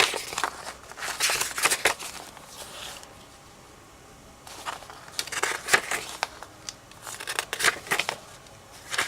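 Paper pages of a manual being flipped and handled, crinkly rustling in two spells with a short lull around the middle.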